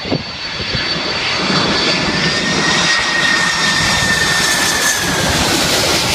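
Boeing 747-400's four General Electric CF6-80C2 turbofan engines passing low overhead on final approach. A loud jet roar builds over the first second and holds, with a high engine whine that slowly drops in pitch as the airliner goes by.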